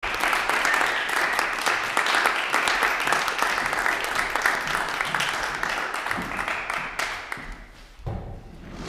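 Audience applauding, the clapping fading away about seven seconds in, followed by a few low thuds.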